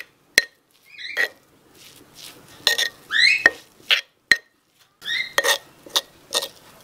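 A metal spoon and a stone pestle scraping and knocking on a stone mortar (cobek) as grated coconut seasoning is mixed by hand. The sound comes as irregular clicks and short scrapes, with a rising scrape about three seconds in.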